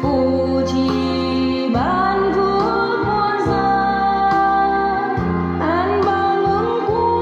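Music from a Vietnamese Buddhist song: a sustained melody over held bass notes, sliding up into new notes about two seconds and six seconds in.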